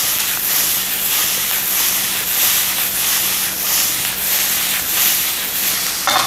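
Diced potato, sausage and vegetable hash sizzling in a frying pan as it is tossed, the sizzle swelling and fading roughly once a second. A short, louder knock near the end as the pan comes back down on the burner.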